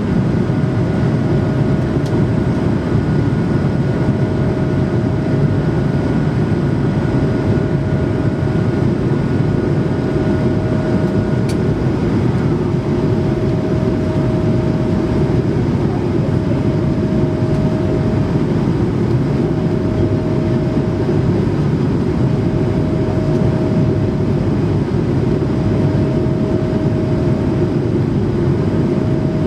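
Steady cabin noise inside an Airbus A220-300 in flight: a constant low rumble of airflow and its Pratt & Whitney PW1500G geared turbofan engines, with a faint steady hum that fades in and out.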